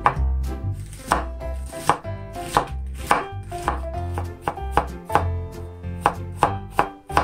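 Kitchen knife dicing an onion on a wooden cutting board: steady knocks of the blade on the board, a little under two a second.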